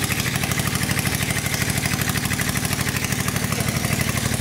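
Honda GX670 670 cc V-twin petrol engine running steadily, with an even, fast firing pulse that holds at one speed.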